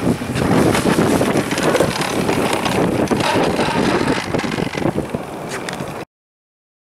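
Wind buffeting the microphone in a loud, rough rumble with irregular crackles. It cuts off suddenly about six seconds in.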